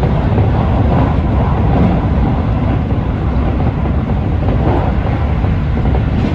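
Keikyu electric train running at speed, heard from the front of the cab: a steady, loud rumble of wheels on rail and running gear.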